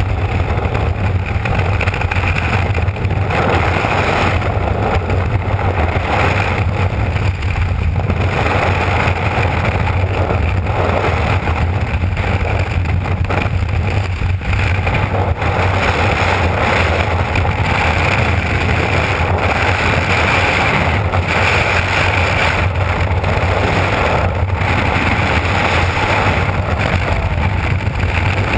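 Freefall wind rushing over the microphone of a skydiver's worn camera: loud, steady wind noise with a strong low rumble that never lets up.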